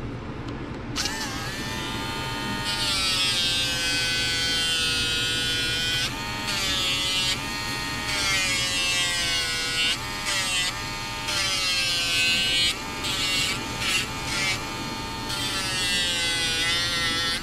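Cordless Dremel pet nail grinder switched on about a second in and whining, its pitch sagging and recovering as the spinning sanding drum is pressed against a dog's nails. In the second half it stops and starts again many times in short spells as each nail is ground.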